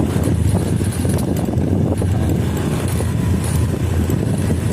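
Honda Vario 125 scooter's single-cylinder engine and road noise while being ridden, a steady low rumble. Faint light ticks high up, at irregular moments, fit the jingling rattle from the rear that the mechanic is trying to trace.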